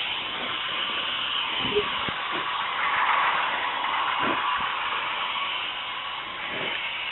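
K'Nex Screamin' Serpent toy roller coaster running: a steady whirring rattle of the motorised lift and plastic cars on the track, swelling about three seconds in.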